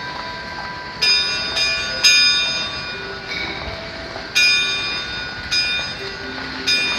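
Tuned bells striking a slow melody to mark one o'clock: about six strikes at differing pitches, each ringing on and fading before the next.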